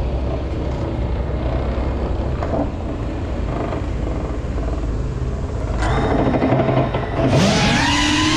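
Steady low rumble throughout. About seven seconds in, music comes in with a wavering, gliding pitched tone.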